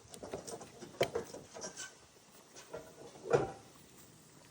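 Scattered light knocks and taps, with one louder thump about three seconds in.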